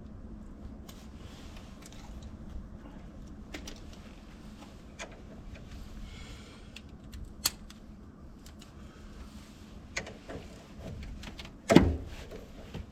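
Scattered light clicks and knocks of tools and parts being handled in work on a car, with one much louder thump near the end.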